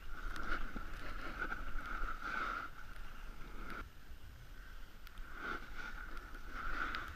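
Board edges sliding and scraping over groomed snow under the rider carrying the camera: a hiss that swells and fades with the turns and drops away for a couple of seconds in the middle.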